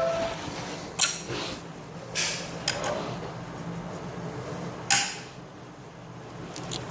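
Metal Allen key clinking and clicking against hex bolt heads as furniture bolts are tightened by hand: a few separate sharp metal clicks, the loudest about five seconds in.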